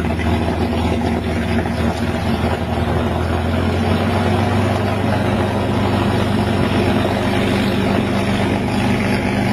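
P-51 Mustang's liquid-cooled V12 aero engine running steadily a few seconds after start-up, a deep even drone with no change in pitch.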